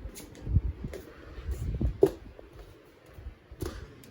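A few scattered clicks and low, dull thumps, like a device or microphone being handled or bumped, with the sharpest click about two seconds in.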